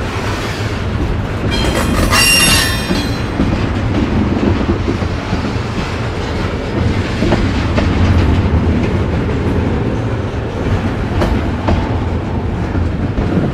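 Freight train rolling past: a steady rumble of steel wheels on rail with clickety-clack over the rail joints. A brief high-pitched wheel squeal comes about two seconds in, and a few sharp clacks come near the end.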